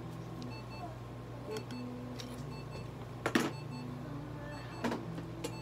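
A steady low electrical hum with faint short beeps repeating about once a second. A sharp knock comes about three seconds in and a smaller one near five seconds.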